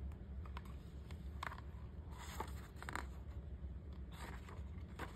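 A hardcover picture book is opened and its endpapers handled and turned, giving a few short, quiet paper rustles and scrapes scattered through, over a steady low hum.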